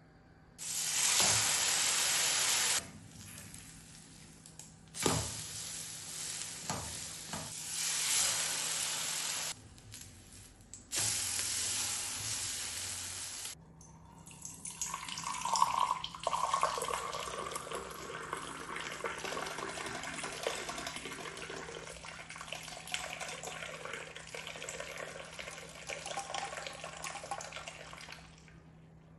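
Liquid poured in a thin stream from a height into a glass mug, splashing steadily as the mug fills and the top froths up; this pour starts about halfway through and runs until shortly before the end. Before it come three separate bursts of steady hissing noise, the loudest sounds here.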